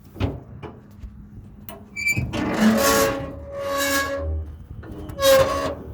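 John Deere Gator's starter motor whirring in three short spurts of about a second each, with a whine running through each spurt and a click just before the first.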